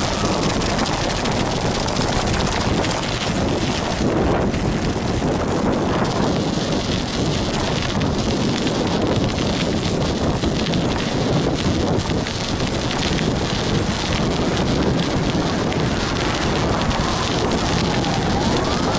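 Schwalbe Marathon Winter studded bicycle tyres rolling on pavement: a steady, dense crackle of the metal studs on the road, with wind on the microphone.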